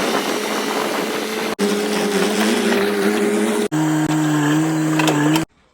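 A motor running steadily, heard as three short spliced clips, each at a different pitch. The sound cuts off abruptly near the end.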